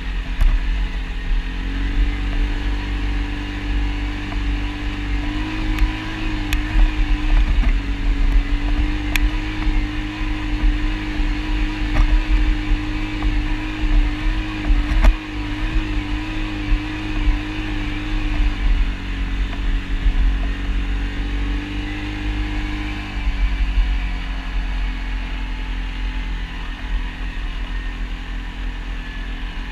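ATV engine running steadily under way over a heavy low rumble. Its pitch rises a little about a second and a half in, holds, and eases back down a little over 20 seconds in.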